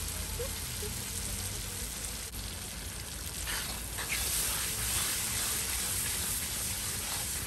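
Curry paste sizzling in hot oil with onion and garlic in a karahi, stirred with a spoon, growing a little louder about halfway through. This is the 'choking' of the curry: frying the paste in the oil to bring out the flavour of the spices.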